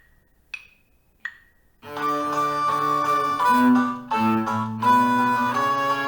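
Two count-in clicks about 0.7 s apart, then a bowed string ensemble with a bass line starts playing a beginner method-book exercise that alternates short, detached notes with smooth, connected ones (staccato and legato).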